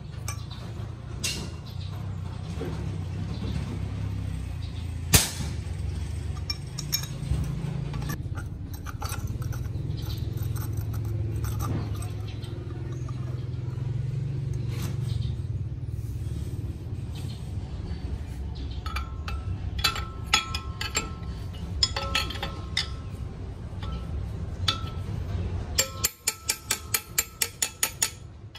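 Steel angle bracket and bolt clinking against a four-jaw lathe chuck as they are fitted by hand, with one sharp knock about five seconds in, over a steady low hum. Near the end, a quick even run of clicks, about five a second, as a wrench turns the nut.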